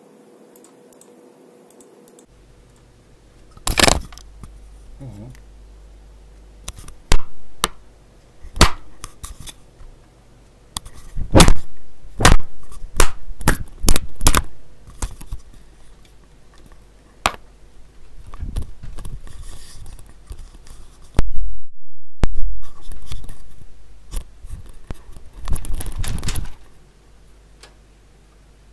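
Sven MK-390 microphone picking up its own cable and body being wiggled and knocked: loud crackles and sharp pops over a low rumble, with scratchy rubbing, and the signal cutting out for a moment about two-thirds of the way through. This is an attempt to bring back the mic's hum, and the hum does not come back.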